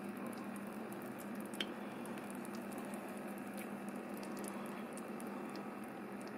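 Braising liquid simmering gently in a slow cooker around a beef pot roast: a steady bubbling hiss with scattered small pops over a low steady hum.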